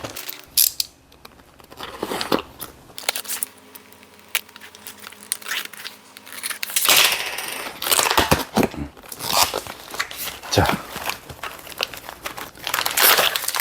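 A box of charcoal being unboxed: packaging crinkling and tearing, with irregular rustles and sharp clicks as the wrapping and bags are handled.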